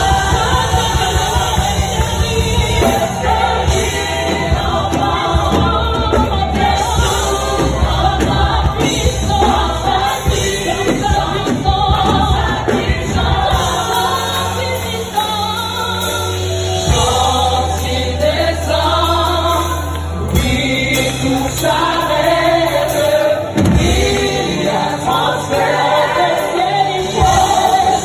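A live gospel praise band with keyboard, guitars and drums accompanying a congregation singing a French worship song together.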